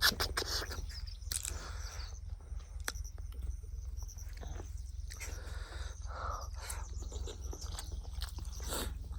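Close-up mukbang eating sounds: irregular chewing, with sharp mouth clicks and smacks, over a steady low hum.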